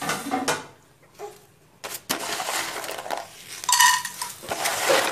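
Dried fankoush snack pellets dropped by hand into a frying pan with a little oil, clattering and clinking against the pan from about two seconds in, with one louder ringing clink near the end.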